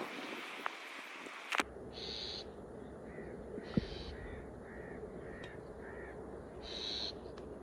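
Birds calling: short harsh calls repeated, about two a second at times, over a steady low hum.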